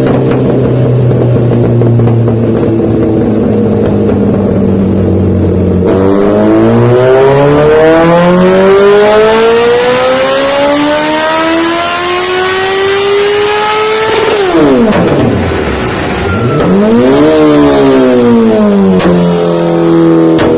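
Honda CBR1000 motorcycle engine on a dyno, running steadily, then making one long pull that rises in pitch for about eight seconds. The pitch drops suddenly as the throttle shuts, rises and falls once more in a short blip, and settles back to a steady run. Popping comes from the exhaust.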